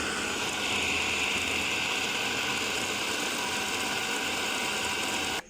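Electric food chopper running steadily, its blades chopping boneless chicken with onion and ginger-garlic paste; the motor cuts off suddenly near the end.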